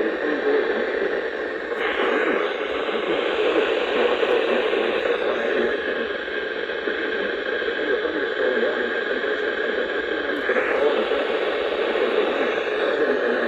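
Weather radio receiver giving steady static hiss on a weak NOAA Weather Radio signal, the alert broadcast lost in the noise. The weak signal is put down to the transmitter running on backup power.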